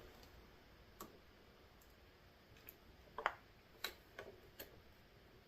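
Near silence broken by five or six faint, scattered clicks and light taps of hand work on a motorcycle handlebar.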